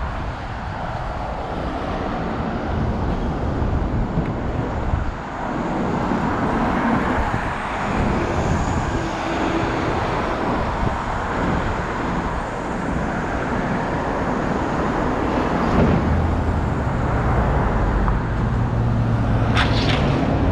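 City street traffic: cars passing with a continuous rumble. A steadier engine hum joins about three-quarters of the way through.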